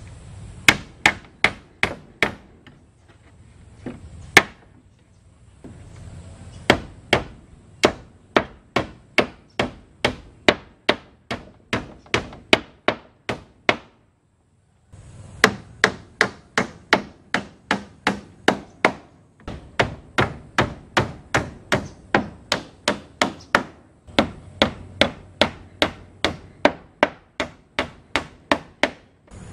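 Hammer driving nails into wooden wall planks: quick, even strikes about three a second, in runs broken by short pauses.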